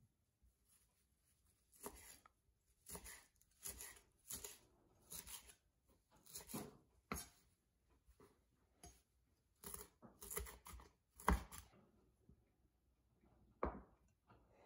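Chef's knife chopping curly parsley on an end-grain wooden cutting board: irregular strokes, about one a second, with a short pause midway. Near the end there is a single knock.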